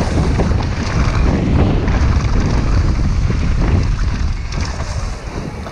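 Wind rushing over an action camera's microphone at speed, with the tyres of a downhill mountain bike rolling over a dirt trail and the bike rattling over bumps.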